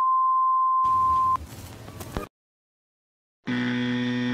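Steady high-pitched electronic beep for about a second and a half, cut off with a click, followed by a short hiss. Near the end, after a silence, a low electronic buzz lasts about a second, a glitch transition sound effect.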